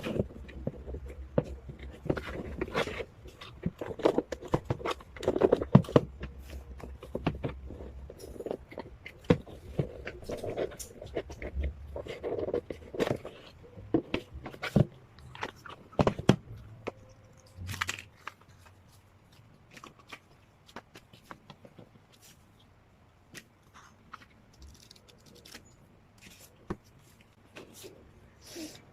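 Hands unwrapping and handling sealed K-pop albums: plastic shrink wrap tearing and crinkling, with card and paper rustling and many small clicks and taps. The handling is busy for the first half and turns sparser and quieter from about halfway through.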